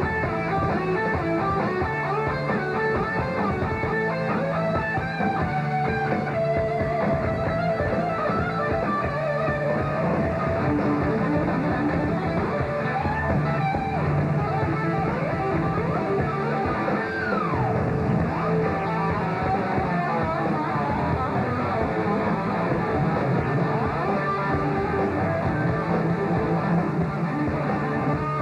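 Live rock band playing loud electric guitar over bass and drums, with one quick falling guitar slide about halfway through.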